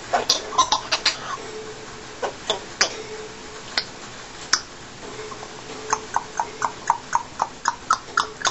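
Congo African grey parrot making short, sharp clicking sounds. There are a few scattered clicks at first, then a quick, even run of about four clicks a second near the end.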